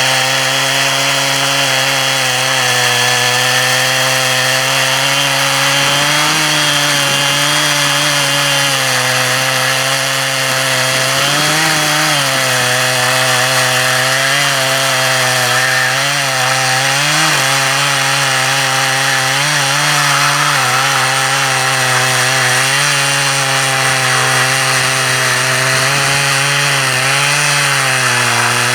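Chainsaw engine running steadily at high revs while cutting wood. The pitch wavers and dips slightly every few seconds as the saw takes load.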